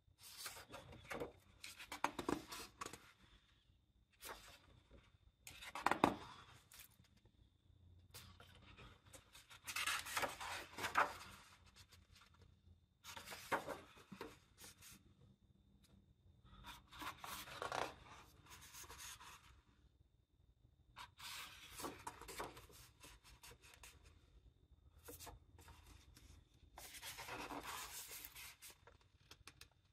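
Paper pages of a large-format art book being turned by hand, a soft rustling swish of paper with hands brushing over the pages, repeating about every three to four seconds.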